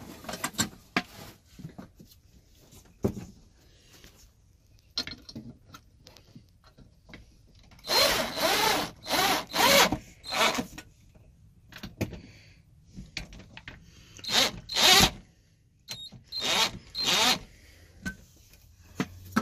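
Chicago Electric cordless drill driving screws into a wooden cabinet, run in a series of short bursts of under a second each, tightening a toilet paper holder in place. A few light taps and clicks of handling come before the drill starts.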